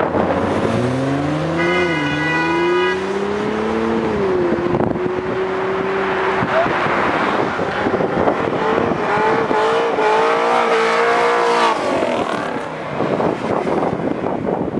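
Car engines revving hard as cars accelerate away, their pitch rising through the first few seconds and a second car's engine climbing again later. A brief steady high tone sounds about two seconds in, and wind buffets the microphone throughout.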